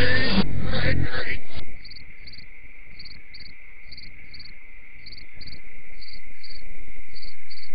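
Crickets chirping in short pairs about once a second over a steady high whine, as part of a soundtrack played backwards. Band music stops abruptly under two seconds in, and the cricket sound grows louder toward the end.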